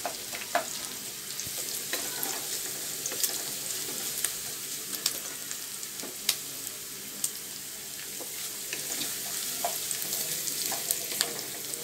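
Chopped onion sizzling in hot oil in a non-stick pan, with a steady hiss and scattered sharp crackles of spattering oil, while a wooden spatula stirs it. The onion is in its first light frying over a medium-high gas flame.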